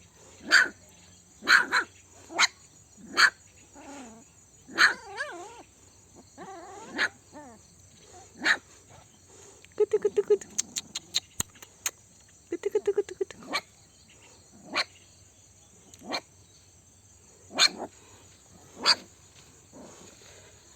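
Eleven-day-old puppies whimpering and squealing: short high cries over and over, with a longer wavering whine about a quarter of the way in. Two short runs of rapid clicking come near the middle.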